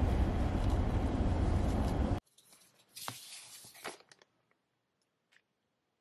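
Steady road noise inside a moving car's cabin, cutting off abruptly about two seconds in. Then near quiet with a few faint rustles and clicks.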